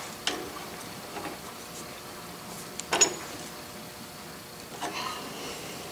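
Steel adjustable wrench clinking against a lathe tool holder as it is fitted to the cutter-clamping screw and tightened: a few light metal clicks, the sharpest just before three seconds in.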